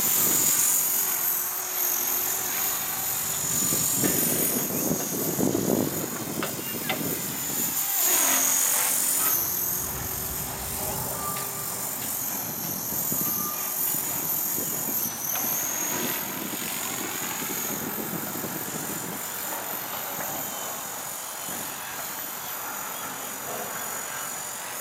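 Electric Align T-Rex 450 RC helicopter flying: a high whine that dips in pitch a few times as the throttle changes, over the rush of the spinning rotor blades. It is louder in the first few seconds and quieter after.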